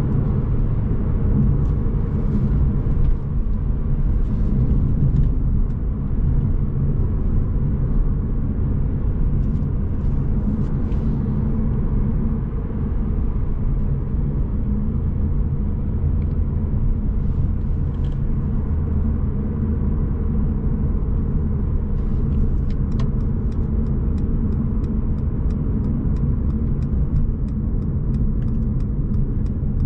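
A Mercedes-Benz C200 Coupe's turbocharged four-cylinder engine and tyres make a steady low rumble, heard from inside the cabin while the car is driven without hard revving. About three quarters of the way in, a regular light ticking starts, a few clicks a second.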